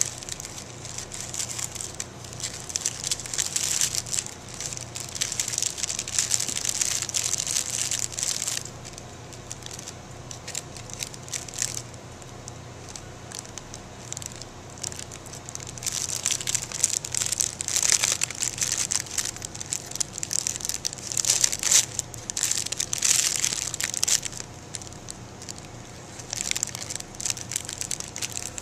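Thin clear plastic bag crinkling in irregular bursts as it is handled, pulled over a small pie candle and gathered shut, with quieter pauses between bursts.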